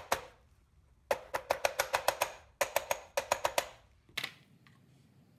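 A wooden-handled hammer taps rapidly on a large impact socket resting on the old axle bearing, driving the new rear axle bearing of a 1985 Toyota Pickup into its backing plate. The taps come in two quick runs of about seven a second with a short pause between, each one ringing, and a couple of clinks follow after another pause.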